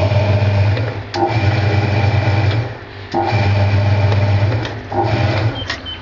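Hoover 200M top-loading washing machine agitating with an empty tub: a steady motor hum that comes in stretches of about a second and a half, broken by short breaks.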